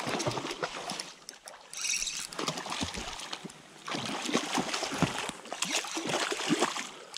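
Hooked brown trout splashing at the surface of a shallow stream as it is played in, in irregular bursts.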